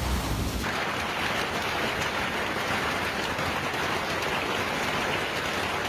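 Heavy downpour: a dense, steady hiss of rain, beginning suddenly about half a second in after a brief low rumble.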